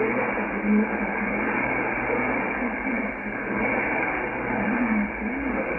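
Weak shortwave broadcast on 15160 kHz heard through a Yaesu FTdx10 transceiver: a faint voice, too weak to make out the language, under steady hiss and static. The operator thinks it may be Radio Algérienne running past its scheduled end.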